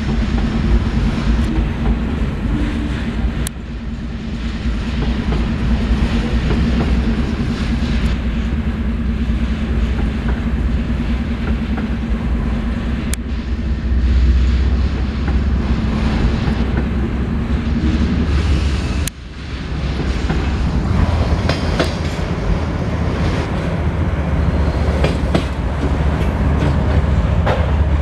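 Freight train passing: a diesel locomotive's engine runs low and steady under the continuous noise of wheels on the rails. The sound dips sharply for a moment about nineteen seconds in.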